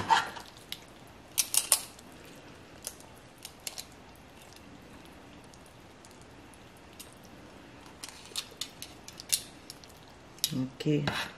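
Stainless steel tongs clinking against a ceramic plate while spaghetti is twisted into a nest: scattered sharp clicks, a cluster at the start and another about two-thirds of the way through.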